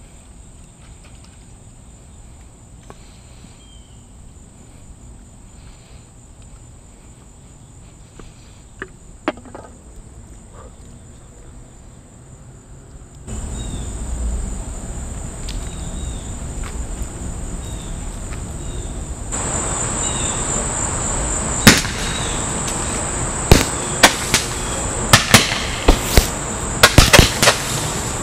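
Steady insect chirring in the background. In the second half, a quick, irregular series of loud, sharp pops from taped-together Roman candles firing.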